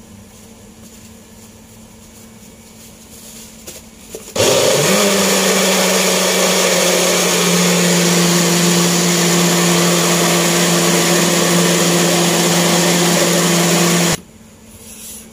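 Countertop jug blender switched on about four seconds in, its motor spinning up quickly and then running steadily for about ten seconds as it purées chopped aromatics and chillies with water into a wet spice paste, then switched off abruptly.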